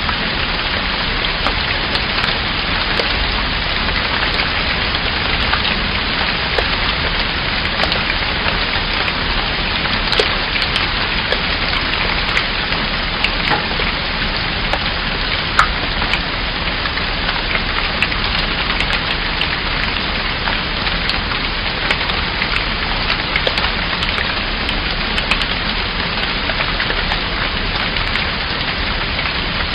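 Steady rain falling, a constant hiss with many small drop hits scattered through it.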